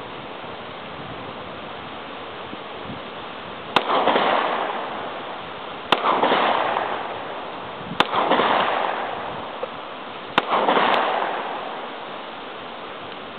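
.45 pistol shots fired at a propane tank: five sharp cracks about two seconds apart, the last two close together. After each of the first four comes a rolling echo that swells and dies away over a second or so.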